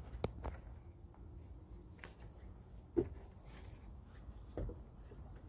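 Footsteps climbing outdoor steps: a few scattered, irregular knocks, the loudest about three seconds in, over a faint low rumble.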